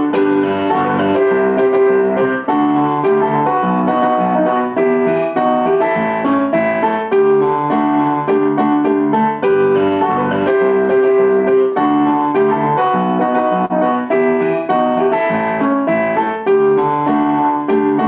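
Piano music: chords and a melody line played at an even pace.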